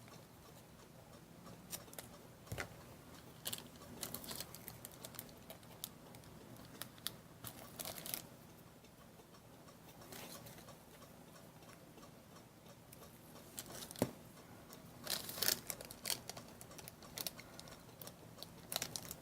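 Faint handling of paper craft pieces: scattered small clicks, taps and soft rustles, with a short louder run of rustling about three quarters of the way through.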